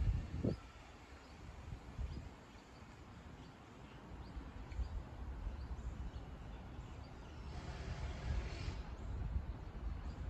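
Outdoor ambience: an uneven low rumble with scattered faint bird chirps, and a brief rush of hiss about eight seconds in.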